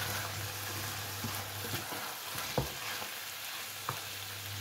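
Chicken and vegetables sizzling in a frying pan on high heat while a spatula stirs them, with a few short knocks of the spatula against the pan, the loudest about halfway through, over a steady low hum.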